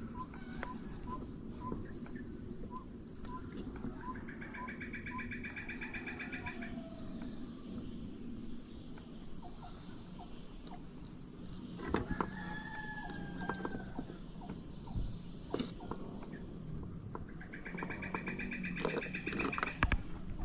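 A rooster crowing twice, once about four seconds in and again near the end, over steady outdoor background, with scattered clicks of fishing tackle being handled.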